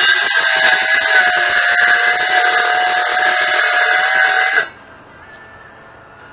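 Corded electric saw cutting through a thin, light wooden panel, a steady motor whine under the cutting noise, cutting off abruptly about four and a half seconds in.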